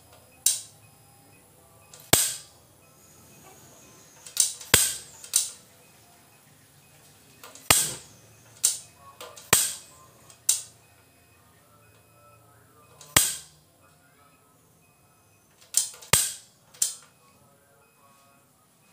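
About a dozen sharp clicks at irregular intervals, one or two seconds apart and sometimes in quick pairs: the gas burner of a cotton candy machine being clicked to light during ignition setup.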